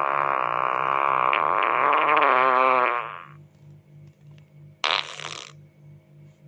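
A long fart with a wavering pitch that rises and falls over about three seconds and stops, then a short, hissy puff of a fart about five seconds in.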